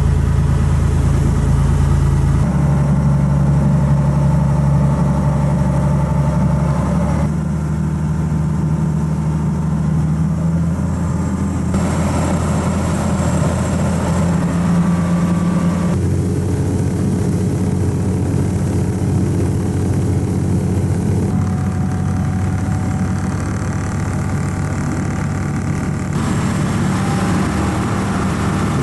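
Small passenger ferry's engine running steadily at cruising speed, a loud low hum over the rushing wash of the boat's wake. The tone shifts abruptly several times.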